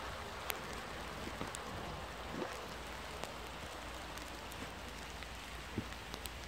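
Steady rain falling on leaves and grass, a soft even hiss with a few sharper drip taps.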